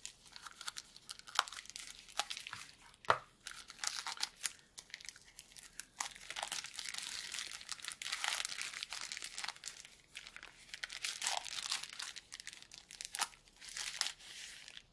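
Packaging of a small camera box being handled and unpacked by hand: irregular rustling with scattered sharp clicks and taps, the sharpest click about three seconds in.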